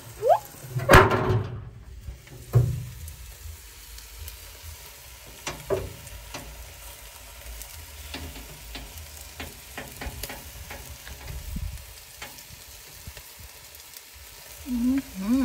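Barbecue-sauce-glazed sausages and corn sizzling on a grill, with scattered small pops and ticks. A loud clatter about a second in as the cover is put down over the pot.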